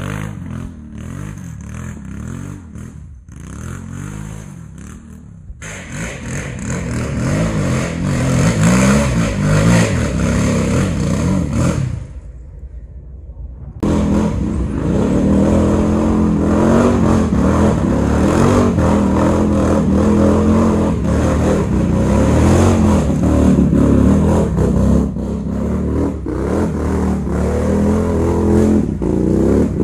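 Quad bike (ATV) engines revving hard as they climb a rough, muddy trail, the engine pitch rising and falling with the throttle. The sound drops away briefly about twelve seconds in, then a louder, closer quad engine labours on.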